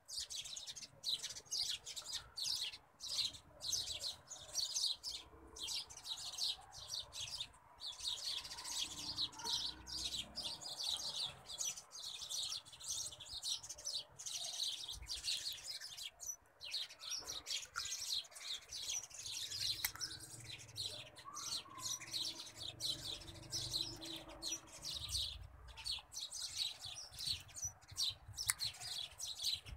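Small birds chirping in a dense, continuous chorus of rapid, high chirps.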